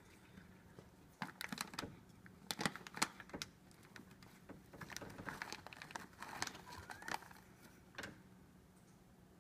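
A plastic cat-treat bag crinkling as a cat pushes its head into it to eat, in two bursts of crackles with a last short one near the end.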